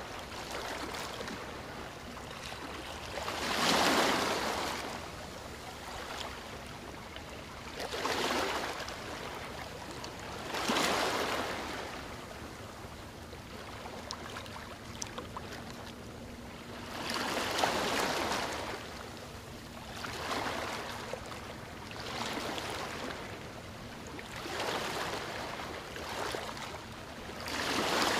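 Hands scooping and pressing a crumbly mixture of toasted semolina and date paste in a bowl and packing it into a wooden mould: a soft rustling scrape that swells every few seconds, with a few light clicks about halfway through.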